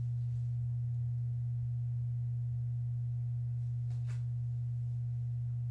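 Steady low electrical hum, one unchanging pitch, with a faint click about four seconds in as the clear plastic card holder is handled.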